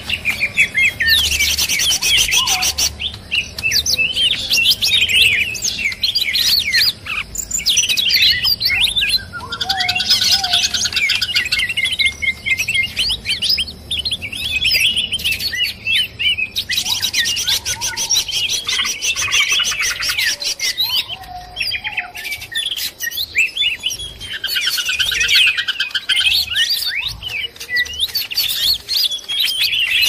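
Leafbirds (cucak ijo) calling noisily: a dense, overlapping chatter of quick high chirps and slides, broken by buzzy rattling stretches that come and go every few seconds. These are agitated, fighting calls mixed as a trapping lure.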